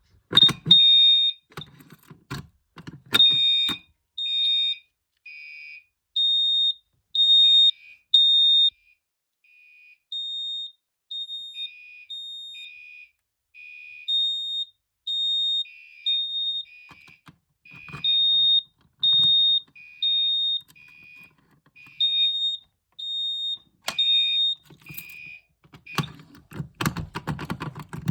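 Fire alarm horns on a 9-volt demonstration board sounding after a Simplex T-bar pull station is pulled: high-pitched, piezo-like pulsed beeps, about one a second, switching between two pitches. A few sharp clicks come at the start, and the beeping stops a few seconds before the end, giving way to clicking and handling noise.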